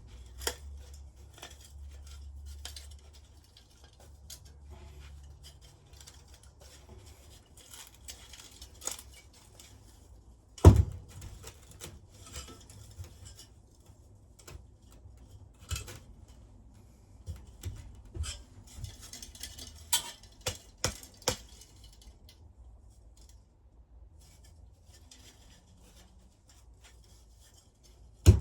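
Scattered metallic clinks and knocks from tools and parts being handled while an electric metal-melting furnace is dismantled. One sharp knock is the loudest, about ten seconds in, and a quick run of clinks follows later.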